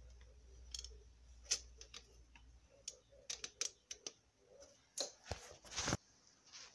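Light, irregular clicks and taps as a thin copper cylinder head gasket is handled over the cylinder barrel studs, with a short rustle near the end.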